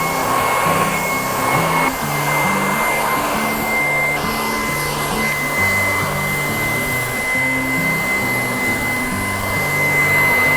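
Panasonic MC-SBU820C cordless vacuum cleaner running steadily in its strong suction mode while cleaning a sofa. A high, steady motor whine sits over the rush of air.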